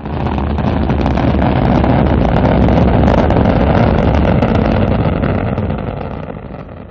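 Rocket engine firing: a loud, steady rumble with crackling, fading away over the last couple of seconds.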